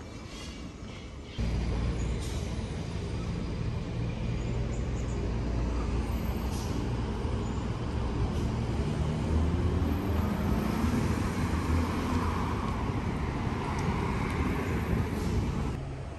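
A large road vehicle's engine running close by in street traffic, a steady low hum that sets in suddenly about a second and a half in and carries on until near the end.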